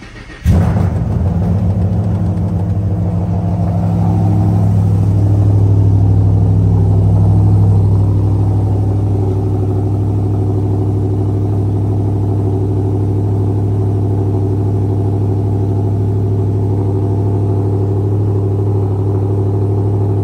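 Cold start of a 2009 Shelby GT500's supercharged 5.4-litre V8, cammed, with long-tube headers, a catless X-pipe and Magnaflow mufflers. It fires about half a second in and settles into a loud, steady high idle, rising a little between about five and eight seconds in, then easing to an even idle.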